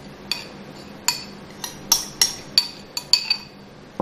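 Metal spoon clinking against bowls as paste is scraped out and stirred in: about eight sharp, irregular clinks, each with a short ring.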